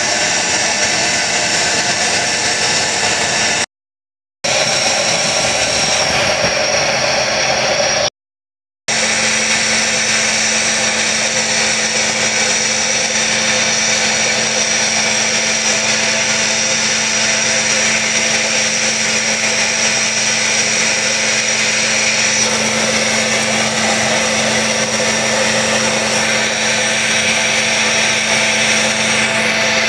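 Gas preheating burner roaring steadily over the mould of an aluminothermic rail weld, heating the rail ends before the thermite pour, with a steady hum under it. The sound drops out twice briefly, about 4 and 8 seconds in.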